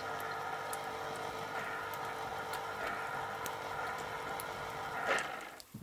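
Electric citrus juicer's motor running steadily while an orange half is pressed onto its spinning reamer, with faint crackles from an egg frying in the pan. Near the end the motor swells briefly, then cuts out as the pressure comes off.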